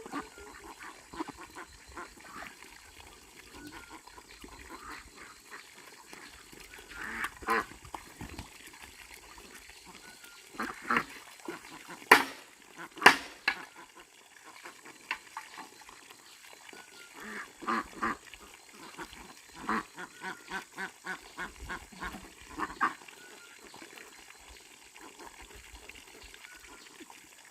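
Short, repeated animal calls coming in scattered groups, with a quick run of them about twenty seconds in and two loud sharp sounds near the middle.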